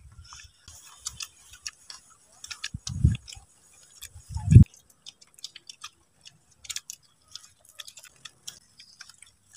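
Scattered small clicks and crackles of hands picking at food over plastic bags and sheeting, as people eat with their fingers. Two low thumps stand out, about three seconds in and again a second and a half later, the second the loudest.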